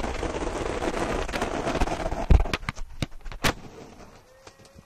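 Skateboard wheels rolling on rough asphalt with a steady grinding noise. Just after two seconds comes a heavy thud, then several sharp clacks of the board hitting the pavement, the last the loudest.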